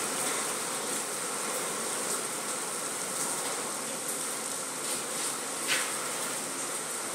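Steady, high-pitched buzzing background noise, with one short click about six seconds in.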